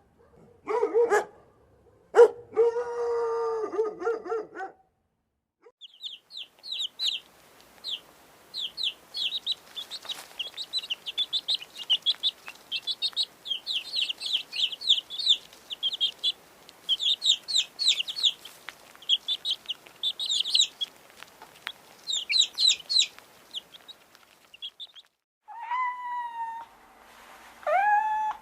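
A sequence of animal calls. First come a few pitched barks and a longer drawn-out call in the first five seconds. Then about twenty seconds of rapid, high, short chirping from birds, and two falling meow-like calls near the end.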